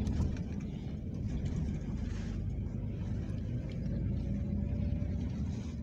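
Steady low rumble of a moving vehicle heard from inside while riding, with a faint whine that rises slowly from about halfway through.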